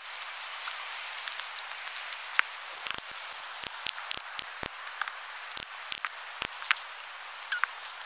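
Large knife being batoned into the end of a branch with a wooden stick: sharp, irregular wooden knocks, roughly two a second, starting a couple of seconds in, over a faint steady hiss.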